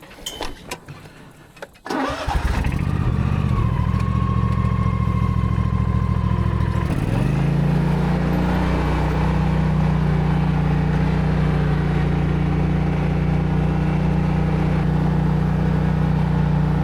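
Zero-turn mower engine starting: a few clicks, then it catches about two seconds in and runs at low speed. About seven seconds in it is throttled up to a higher steady running speed.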